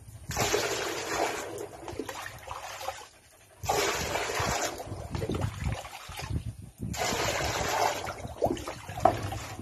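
Water splashing in three separate bursts of about a second each, with quieter gaps between them.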